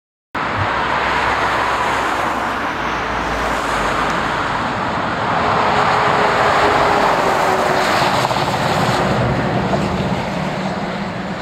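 MAN semi-trailer truck driving past: diesel engine and tyre noise that cuts in suddenly, grows louder as the truck comes by, and eases off slightly as it moves away.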